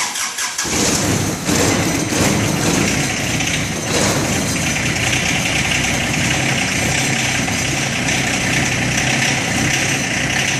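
John Deere 2025R compact tractor's three-cylinder diesel engine running steadily at idle after a hard cold start. It comes in suddenly, fills out over the first second or so, then holds an even, unchanging note.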